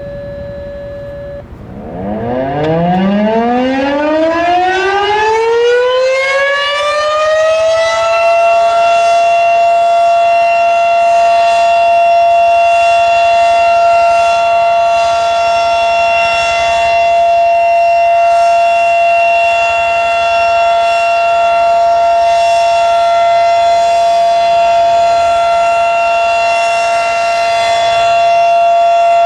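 Federal Signal Model 5 mechanical warning siren starting up for a test. A held tone stops about a second and a half in, then the siren winds up in a rising wail for about six seconds and holds a steady high pitch at full speed.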